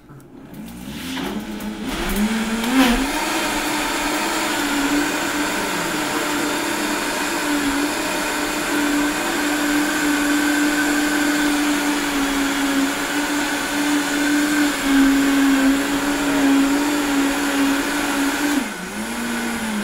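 Countertop blender running on a liquid cacao drink: the motor spins up over the first couple of seconds, runs steadily, then winds down near the end.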